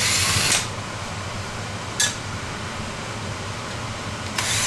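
Power drill/driver backing screws out of a box fan's plastic housing in short bursts: about half a second at the start, a brief one about two seconds in, and another near the end.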